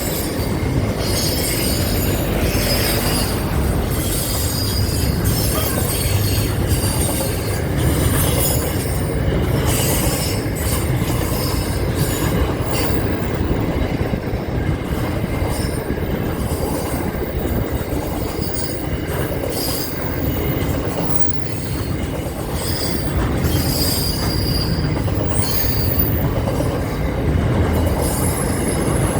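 Train running past close by: a steady rumble of wheels on the rails, with brief high wheel squeals now and then.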